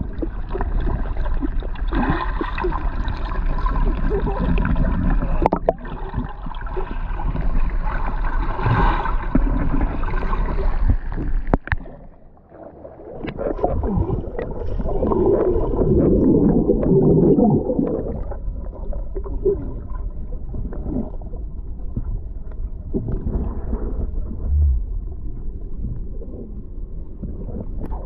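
Swimming-pool water sloshing and gurgling close to the microphone, muffled, with a brief quieter moment near the middle followed by a loud churning stretch.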